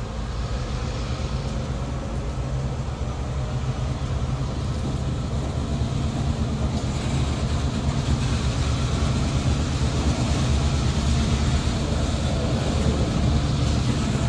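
Open-top freight cars of a New York & Atlantic Railway freight train rolling slowly past close by: a steady low rumble of wheels on rail that grows slowly louder.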